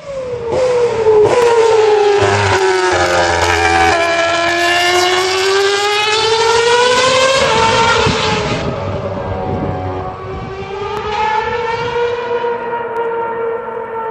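Formula One car's engine at high revs, a loud, high-pitched scream whose pitch falls over the first few seconds and then climbs again. From about nine seconds in it goes on as a steadier, duller note.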